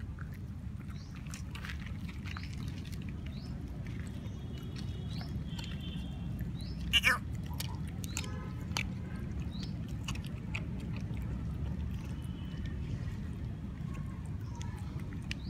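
A puppy eating boiled rice and chicken from a steel bowl: chewing with small clicks and scrapes, and one sharp knock about seven seconds in. A steady low rumble runs underneath.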